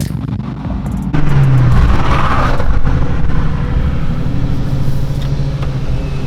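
Dodge SRT Hellcat's supercharged V8 running hard under acceleration. The engine gets suddenly louder about a second in, then holds a steady pull.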